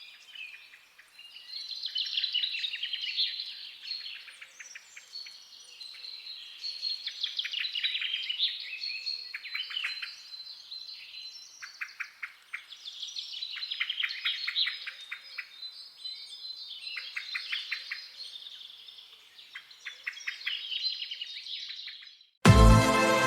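Birds chirping and singing, with many overlapping calls and rapid trills coming in waves. Near the end, loud music cuts in suddenly.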